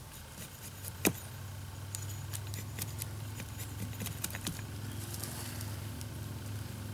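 Hand-held axe head shaving and scraping wood from the end of a wooden axe handle: a sharp click about a second in, then a run of small clicks and scrapes.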